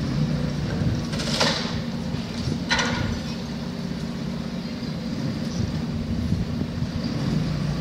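Demolition machine's engine running steadily, with two short metallic scrapes or clanks, about a second and a half apart, a little after the start.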